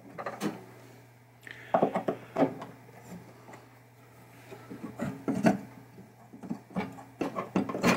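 Scattered clicks, knocks and scrapes of a screwdriver and the metal chime-box bracket being worked loose inside a pinball machine's wooden cabinet, over a faint steady low hum.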